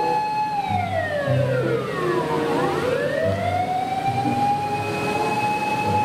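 Fire engine siren wailing: a steady tone that slides down slowly for about two seconds, then climbs back up and holds at its high pitch.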